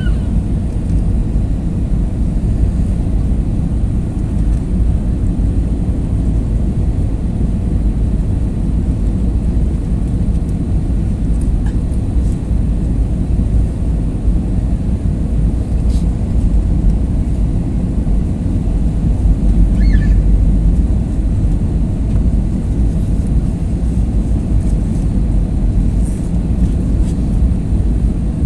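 Airliner cabin noise: the steady, deep rumble of the jet's engines and airflow heard from a passenger seat, during the approach to landing.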